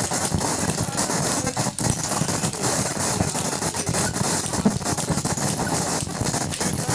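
Live noise music built from field recordings: a steady, dense wall of hiss and crackle, peppered with many small clicks.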